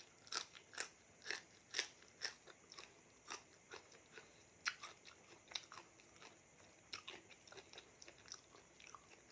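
Close-up mouth sounds of chewing raw seafood salad: wet, crunchy clicks and smacks, about two a second at first, then more scattered.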